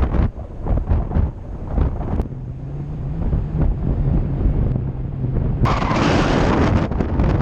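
Wind buffeting the microphone of a paraglider pilot in flight, a loud, gusty rumble that swells again about two thirds of the way through.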